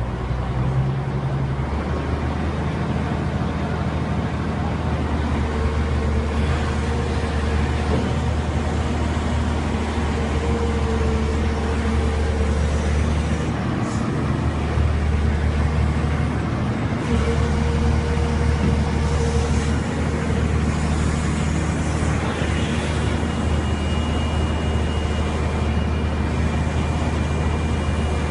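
Tata Hitachi excavator's diesel engine running steadily, with a higher whine that comes and goes and a couple of brief dips in the engine note.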